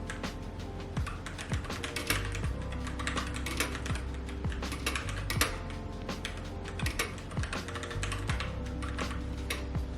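Rapid, irregular typing on a keyboard, key clicks coming in quick runs, over quiet background music with sustained low notes.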